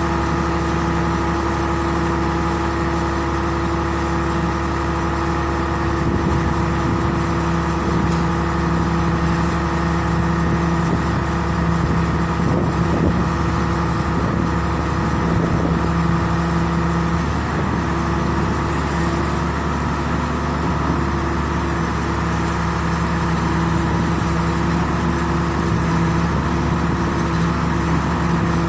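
RB 5000 baler running steadily: a constant machine hum with an engine-like drone and fixed tones. Faint irregular knocks come and go in the middle.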